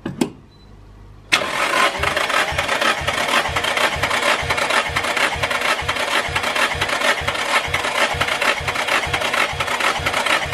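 Nissan SR20DET four-cylinder turbo engine being cranked on its starter motor, with fuel and ignition cut so it does not fire, for a compression test. It starts suddenly about a second in and keeps turning over with an even, rhythmic chug until near the end.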